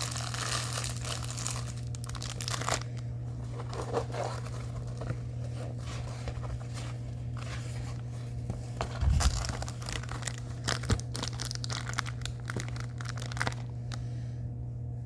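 Plastic sheeting and packaging crinkling and rustling as a diamond-painting canvas is handled. It is densest in the first few seconds, then thins to scattered crackles with a soft thump about nine seconds in, over a steady low hum.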